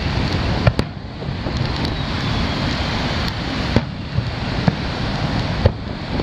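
Aerial firework shells bursting with sharp cracks: two close together about a second in, then a few more spread through the rest. Behind them a steady rush of wind on the microphone and surf.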